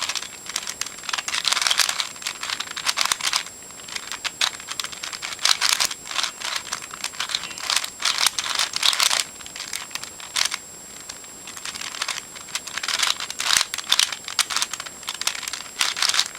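Eastsheen 4x4 plastic puzzle cube being turned quickly by hand, its layers clicking and clattering in runs of rapid twists with a couple of short pauses.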